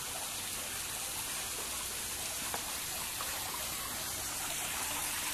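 Steady splash and trickle of water falling into a garden fish pond from its waterfall feature, growing a little louder near the end.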